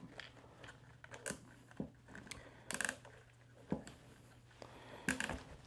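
Nylon zip tie being pulled tight, its ratchet giving a quick run of fine clicks about three seconds in, with scattered plastic clicks and handling around it and another short burst near the end.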